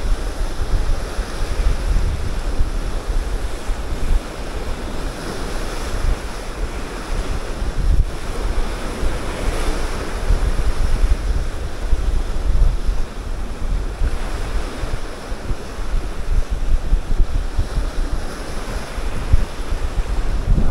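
Rough sea surf washing in and swelling louder and softer by turns, with wind rumbling on the microphone.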